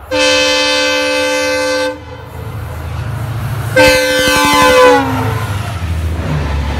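Electric locomotive's air horn sounding two chord blasts, a long one of about two seconds and then a shorter one whose pitch drops at its end as the locomotive passes close by. The rumble of the express train's coaches rushing past grows and carries on after the second blast.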